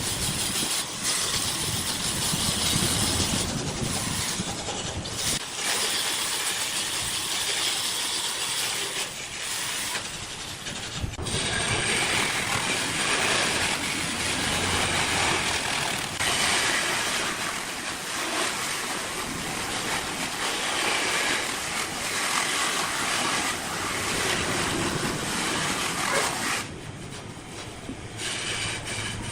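Woodworking machinery running, most likely a wood lathe with a tool cutting the spinning wood. It makes a steady rushing hiss that shifts in tone about a third of the way in and drops briefly near the end.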